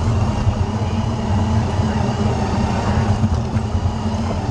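An FTC competition robot's electric drive motors and gearboxes running, heard through a camera mounted on the robot: a steady low hum with a faint high whine that wavers. Hall crowd noise and voices sit behind it.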